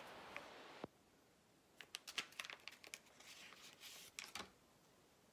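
Single-use makeup remover wipe packet being opened by hand: a soft rustling hiss that stops abruptly, then a string of crinkles and crackles as the wrapper is torn and worked open.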